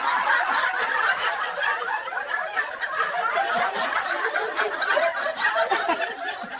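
A crowd of people laughing and chuckling together, many voices overlapping with no single one standing out.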